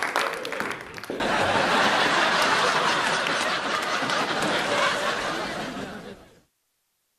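Audience laughter from a TV sitcom laugh track after a joke, swelling about a second in, then fading out to silence about six seconds in.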